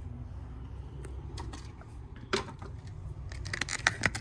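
Scattered light clicks and knocks of a phone being handled and turned around, thickening into a quick run of clicks near the end, over a steady low rumble.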